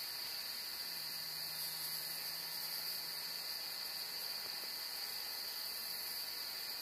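Steady, continuous high-pitched chorus of crickets.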